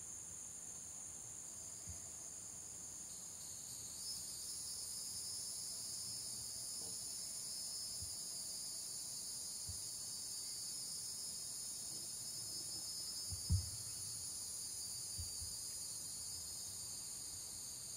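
Steady chorus of insects such as crickets, a high drone of several pitches at once that grows louder about four seconds in. A few soft low thumps, the loudest about two-thirds of the way through.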